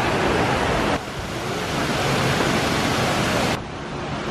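Steady rushing and splashing of falling water from a mini-golf course waterfall. It drops abruptly about a second in and again near the end.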